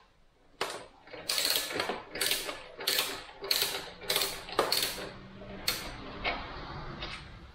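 Ratchet wrench clicking in about eight quick return strokes as the 14 mm nut at the top of a Honda Super Cub C125's rear shock absorber is loosened; the strokes stop at about 6 s.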